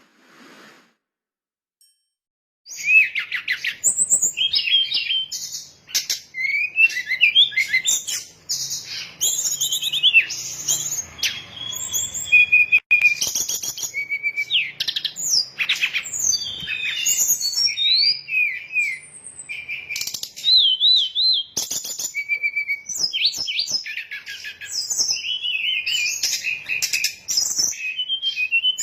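SRDC (brown-chested jungle flycatcher) song played as a trapping lure call: a rapid, varied run of high chirps, trills and sliding whistled notes. It starts about three seconds in and carries on without pause.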